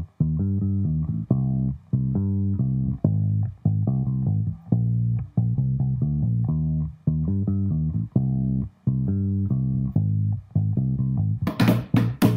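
Instrumental music: a simple melody played one note at a time, low in pitch, each note held evenly and cut off sharply. Near the end, sharp, bright strokes join in.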